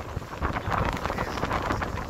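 Gusty wind buffeting a phone microphone on the deck of a moving ferry, an uneven rushing noise with a low rumble underneath.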